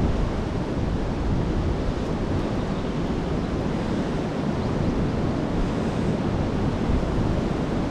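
Steady wind buffeting the microphone: a constant rushing rumble, heaviest in the low end, with no distinct events.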